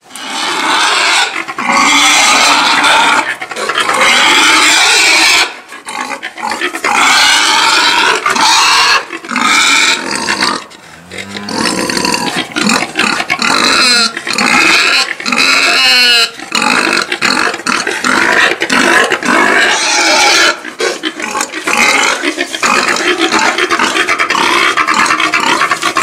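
A group of pigs squealing loudly and continuously, many high, wavering calls overlapping with hardly a pause.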